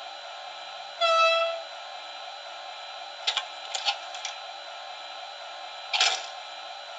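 Model locomotive DCC sound decoder playing through its small onboard speaker over a steady hiss: a short, single tone about a second in, then a few sharp clicks and clunks a couple of seconds later and one more near the end.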